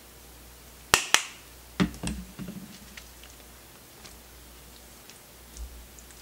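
Two sharp plastic clicks about a second in, then a knock and a short clatter: a plastic spice shaker being handled and set down on the counter. Faint ticks and rustles follow as raw chicken pieces are handled in a plastic container.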